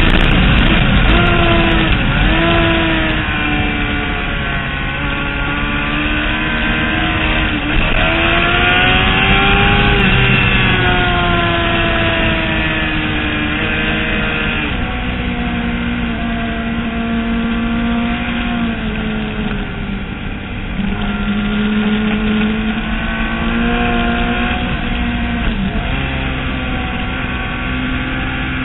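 Racing motorcycle engine heard onboard at speed on a track, its pitch climbing under throttle and dropping sharply at each gear change, with stretches of steadier pitch in between.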